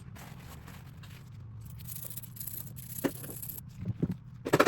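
Brush scrubbing and handling of a corroded aluminium artillery fuse in vinegar-water cleaning: faint scraping, a few knocks from three to four seconds in, then a short loud burst of harsh scrubbing noise at the very end.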